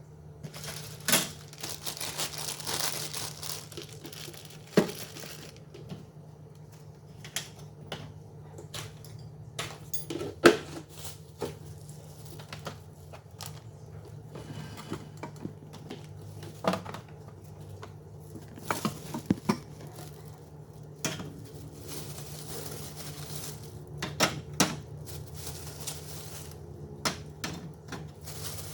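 Restocking a refrigerator: plastic packaging crinkling and rustling, with scattered clicks and knocks of containers and items being set down, over a low steady hum.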